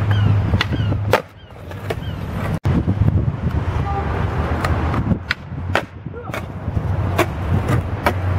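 Skateboard rolling over paving slabs, its wheels clacking at the joints about every half second to second, over a steady low rumble. The sound breaks off for an instant about two and a half seconds in.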